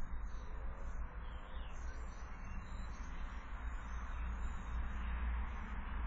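Faint birdsong, thin and scattered, over a steady low rumble and hiss.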